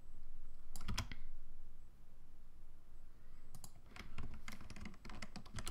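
Clicks of a computer keyboard and mouse: a short cluster of clicks about a second in, then a quick run of clicks over the last two seconds.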